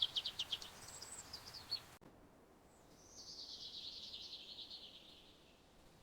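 Small songbirds singing: a fast trill of high chirps at the start and a brief higher note about a second in, then, after an abrupt cut, a longer buzzy trill lasting about two seconds.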